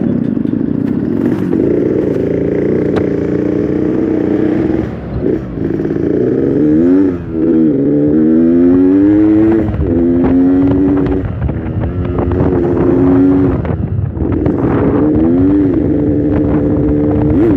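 Yamaha RX-King two-stroke single-cylinder motorcycle engine under way, its note climbing and falling back several times as the throttle is worked. It is slow and heavy to rev at the top end, which the rider puts down to an over-rich fuel mixture.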